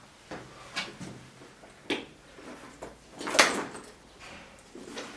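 Household handling sounds: a string of separate knocks and clicks, like a door or cupboard being opened and things being picked up, the loudest a knock about three and a half seconds in.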